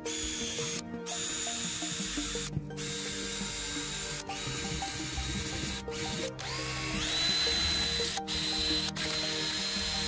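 Cordless drill spinning a small wire wheel brush against rusty steel, scrubbing rust off a brake caliper guide pin and bracket in runs with several short stops. The motor's whine steps up in pitch about two-thirds of the way in.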